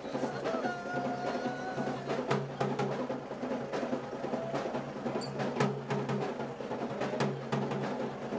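Live drumming: sharp drum strikes in a quick, uneven rhythm over a steady low drone, with a held higher note in the first couple of seconds.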